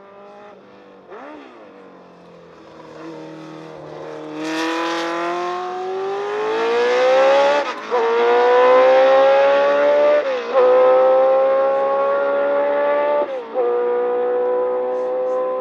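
Cosworth DFV V8 of a Tyrrell 002 Formula 1 car accelerating hard, its rising note broken three times by quick upshifts. It grows louder to a peak, then slowly fades as the car pulls away.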